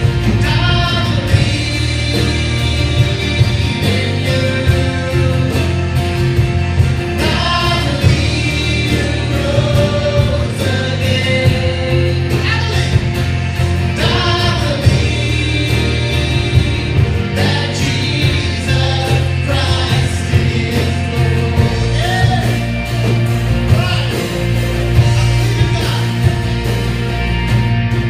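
Live worship band playing and singing: lead and backing vocals over electric and acoustic guitars, bass, keyboard and a drum kit keeping a steady beat.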